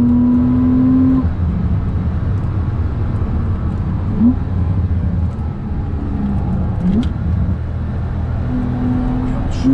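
Car engine running while driving, with a steady low rumble underneath. The engine note holds for a second, drops lower, rises briefly twice, and climbs again near the end.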